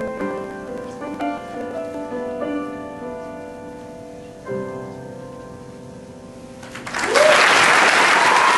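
Upright piano playing the closing notes of a piece, ending on a final chord about four and a half seconds in that is left to ring and fade. Audience applause breaks out loudly about seven seconds in.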